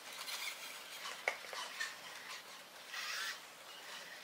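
Sony AIBO ERS-210 robot dog's leg servo motors whirring faintly as it shifts its legs to kick a ball, with a click about a second in and a louder whir about three seconds in.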